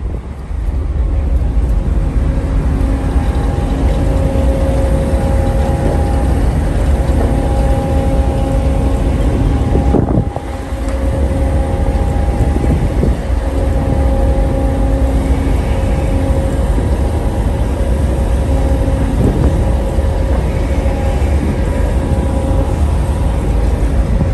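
Steady low rumble of a large ship's engines and deck machinery, with wind buffeting the microphone. Over it runs a hum of several held tones that fades in and out. The sound dips briefly about ten seconds in.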